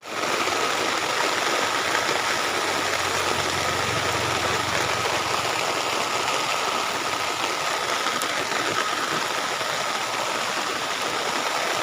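Fast-flowing floodwater rushing steadily, with a thin steady whine running underneath.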